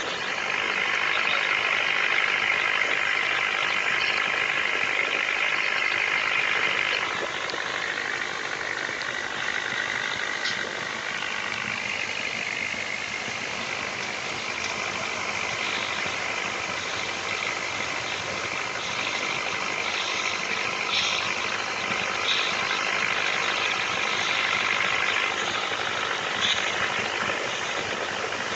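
Toy pop-pop steam boat (otok-otok) running, its tin boiler making a steady rapid putt-putting.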